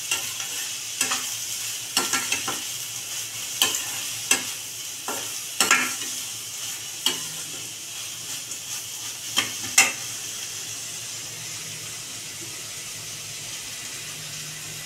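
Slotted metal spatula scraping and knocking against a stainless steel kadai as chopped green beans and onion are stirred, over a steady sizzle of the vegetables sautéing in oil. The knocks are irregular and stop about ten seconds in, leaving the sizzle alone.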